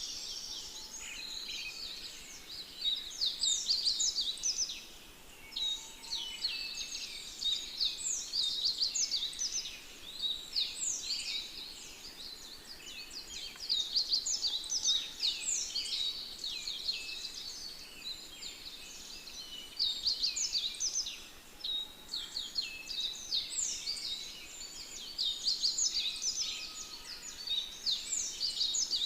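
Many birds chirping together in a dense chorus of quick, high, downward-swept notes that swell in bursts every few seconds.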